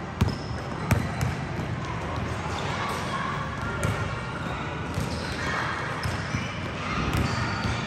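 Basketballs bouncing on a court: a handful of sharp, irregularly spaced bounces over indistinct chatter from players.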